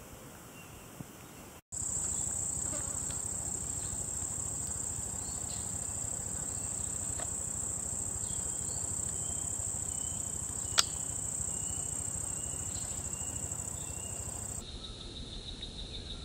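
Steady, high-pitched insect drone of a tropical insect chorus, with a single sharp click about 11 seconds in. Near the end it switches to a lower-pitched, steady insect whine.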